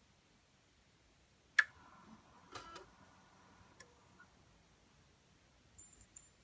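A sharp click about a second and a half in, followed by a faint ringing that fades over the next two seconds, then a few smaller clicks and ticks.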